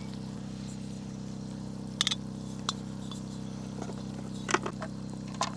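A few small clicks and clinks, like gear being handled while searching a container for a lighter, over a steady low hum.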